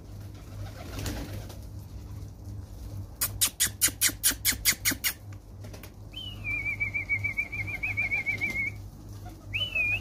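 Domestic pigeons in a loft: about three seconds in, a quick run of about ten wing flaps as a pigeon takes off, then a warbling whistle lasting about two and a half seconds and a short rising-and-falling whistle near the end.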